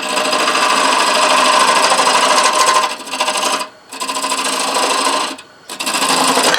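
Turning tool cutting a spinning purpleheart blank on a wood lathe: a loud, steady rasping cut with a pitched hum in it, dropping out briefly twice as the tool comes off the wood.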